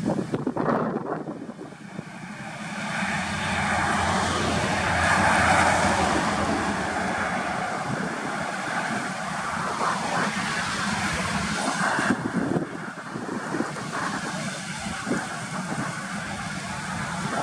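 Highway traffic going by: a state transport bus and cars driving past with engine and tyre noise. The noise swells to its loudest about five seconds in, then holds fairly steady.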